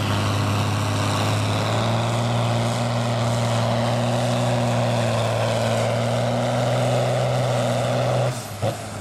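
John Deere diesel farm tractor engine running steadily at full load while pulling a weight-transfer sled, its note stepping up slightly about two seconds in. Near the end the engine sound drops off abruptly as the pull ends, followed by a brief click.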